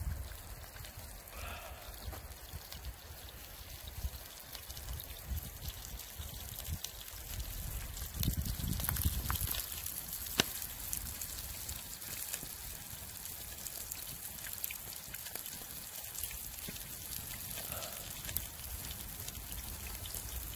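A knife blade scraping and tapping on a thick wooden board, with a few light clicks, over a steady watery hiss. A low rumble swells briefly about eight seconds in.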